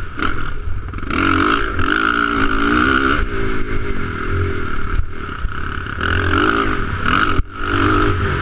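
Motocross dirt bike engine revving up and falling back again and again as the rider works the throttle around the track, with brief throttle cuts about five seconds in and again near the end.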